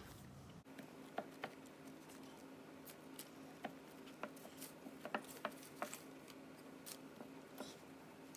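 Faint, irregular soft taps and clicks of hands pressing pie dough into a pie pan, over a low steady hum.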